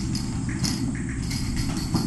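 Light taps and scuffles of a kitten's paws as it leaps and scampers across a hard floor, over a steady low hum.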